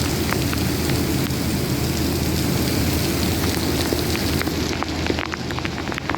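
Heavy monsoon rain pouring steadily, with a low rumble underneath and many separate drops tapping. About three-quarters of the way through, the highest hiss thins out and the individual drop taps stand out more.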